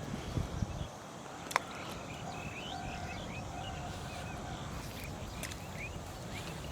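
Birds chirping over steady outdoor background noise, with many short rising notes repeated from about two seconds in. There is a sharp click about a second and a half in, and a few low bumps at the start.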